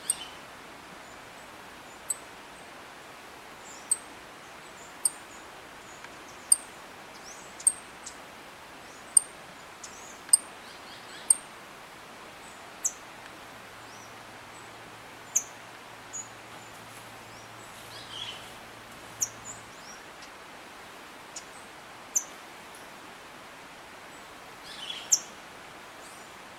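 Saffron finch giving single short, high-pitched call notes at irregular intervals of a second or two, over a steady background hiss.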